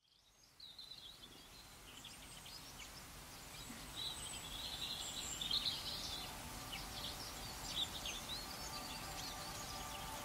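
Birds chirping and trilling in short, scattered calls over a steady outdoor background hiss, fading in from silence at the start.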